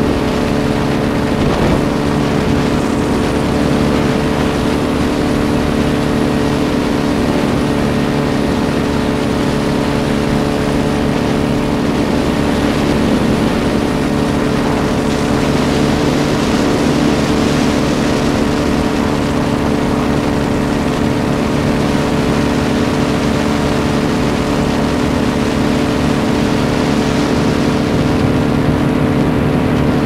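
Powered paraglider's engine and propeller running steadily in cruising flight, one unchanging engine note.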